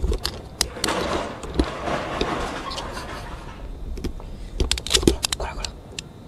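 A cat's fur and head rubbing and bumping against the camera and its microphone: rustling scrapes with a run of sharp knocks, thickest in the first half, and a cluster of bumps about five seconds in.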